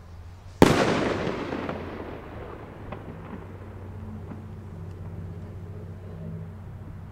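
Firework rocket bursting in the sky: one sharp, loud bang about half a second in, followed by a rumbling echo that fades away over a couple of seconds, then a few faint pops.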